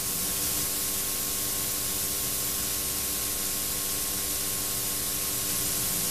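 Steady hiss with a faint low hum underneath, the background noise of a VHS tape transfer; no tapping or knocking is heard.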